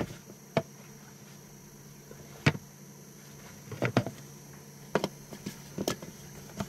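Light clicks and knocks, about eight of them at irregular intervals, as a plastic Maxwell circuit breaker/isolator panel is handled and fitted into a freshly sawn hole in a wooden bulkhead. A steady low hum runs underneath.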